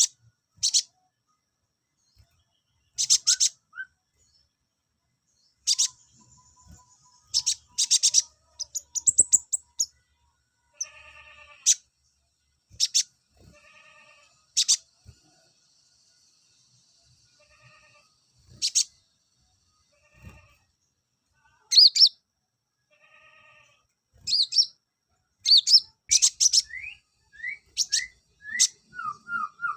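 Male konin (ashy tailorbird) singing: loud, sharp chirps in short clusters, with high thin trills between them and a few quick rising notes near the end.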